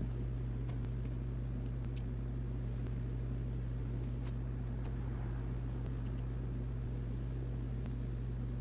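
Steady low hum that does not change, with a few faint light clicks scattered through it.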